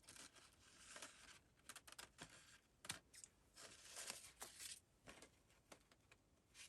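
Faint snipping and rustling as a strip of snowflake lace is cut with scissors, with light clicks and taps of paper being handled.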